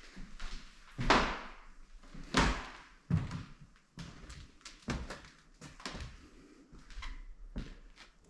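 Two loud scraping crunches about a second apart, then a run of irregular lighter knocks and clicks, like things being bumped and shifted.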